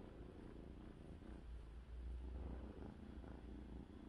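Ginger tabby kitten purring with a low, steady purr while being stroked.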